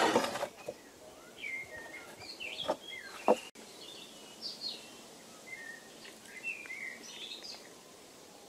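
Small woodland songbirds chirping and calling in short, varied phrases. There is a brief rustle at the start and two sharp clicks around three seconds in, the second the loudest sound.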